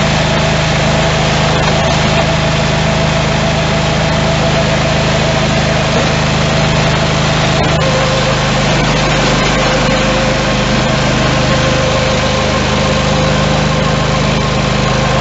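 Simplicity 16 GTH garden tractor engine running steadily under the seat, with a steady whine that drops to a lower pitch about eight seconds in.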